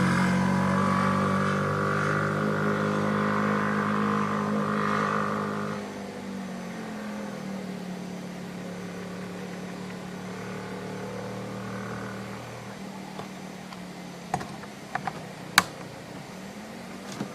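Motorcycle engine running along a road, steady at first, then fading after about six seconds as it moves away, its pitch dipping. A few sharp clicks near the end.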